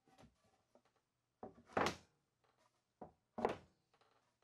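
Thick knotty alder shelf panels being handled and set down on a wooden workbench: a few dull wooden thunks, the loudest about two seconds in.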